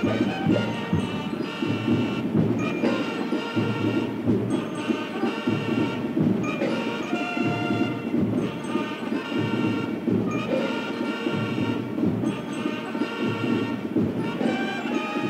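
A corps of drums band playing: side and bass drums keep up a dense, steady beat under phrases of bugles, which break off briefly every couple of seconds.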